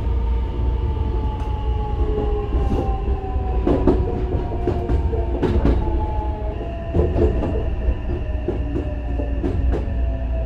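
Hankyu 9000 series train's Toshiba IGBT-VVVF inverter and traction motors whining, the pitch falling slowly as the train slows under braking into a station. Sharp clicks from the wheels over rail joints are heard now and then over the low running rumble.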